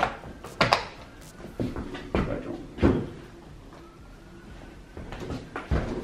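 A handful of sharp plastic clicks and knocks as a Honeywell T6 thermostat is pressed and snapped onto its wall mounting plate. The loudest come in the first three seconds, with one more near the end.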